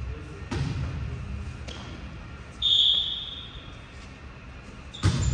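Volleyball being played: the ball is struck with sharp smacks twice early on and again hard near the end, and a referee's whistle is blown once, a steady shrill blast of nearly a second, about halfway through.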